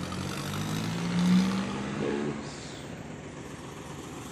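A vehicle engine running, its pitch rising slightly and its sound swelling to a peak about a second and a half in, then easing back to a steady low hum.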